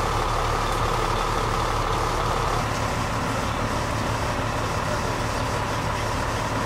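A large vehicle's engine idling steadily with a low hum. The sound shifts slightly about two and a half seconds in.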